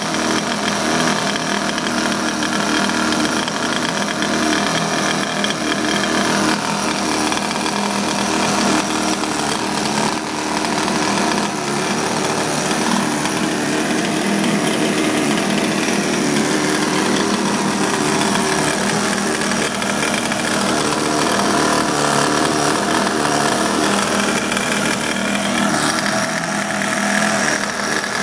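Small two-stroke engine of an RC boat fitted with a custom exhaust, running continuously, its pitch rising and falling with the throttle.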